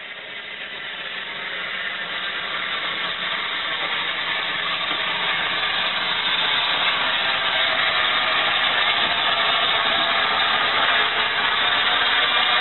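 Steam hissing steadily from a rebuilt Bulleid Battle of Britain class Pacific steam locomotive, growing louder over the first few seconds as the engine comes closer.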